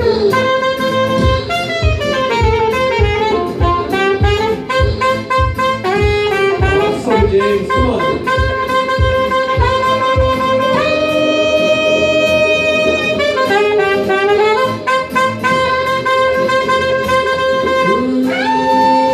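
Saxophone solo over a steady percussive beat: the sax plays a moving melody and holds one long note about halfway through.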